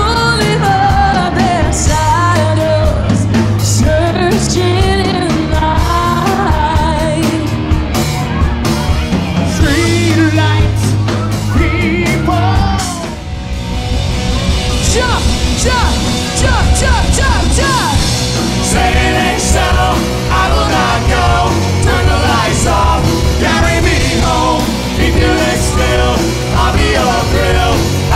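A live rock-pop band playing with drums, electric bass, guitars and a lead vocal over a steady driving beat. About 13 seconds in, the music briefly drops before it builds into the next section.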